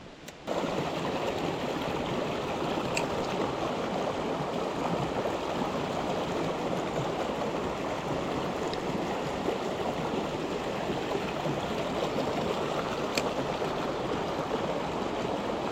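Mountain stream water rushing over rocks, a steady, even rush that cuts in suddenly about half a second in. Two faint ticks sound over it.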